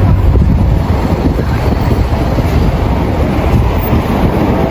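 Wind buffeting the microphone outdoors: a loud, steady, low rumble with no distinct tones.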